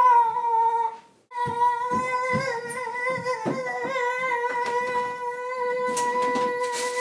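A boy's voice holding one long, steady sung note, broken briefly about a second in and then held for about six seconds, with soft thumps underneath and a few clicks near the end.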